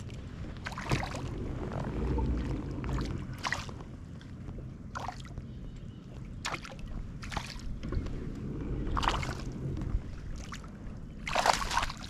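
Small waves slapping and splashing against a plastic kayak hull every second or two, the loudest splash near the end, over a steady rumble of strong wind on the microphone.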